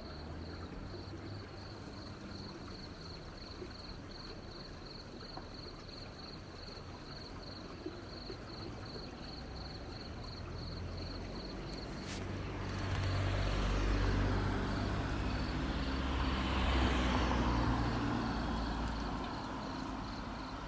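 A motor vehicle passes about twelve seconds in; its rumble swells, holds for several seconds and fades. Under it a steady high-pitched chirping repeats about three times a second.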